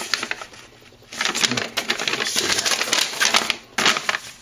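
Sheet of paper being unfolded and handled, giving crisp rustling and crackling in bursts: a short one at the start, a long one from about a second in, and a brief one near the end.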